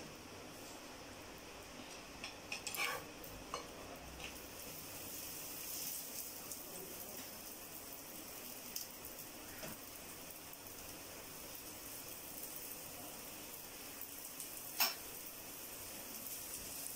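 A paratha frying in oil on a hot nonstick tawa, a steady soft sizzle. A metal spatula and spoon click against the pan a few times about three seconds in, and once sharply near the end.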